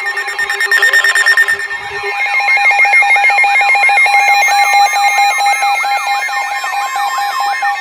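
Several emergency alert alarms sounding over one another for a snow squall warning. A steady low tone cuts out about two seconds in, then a warbling siren-like sweep repeats about three times a second over a rapidly pulsing beep.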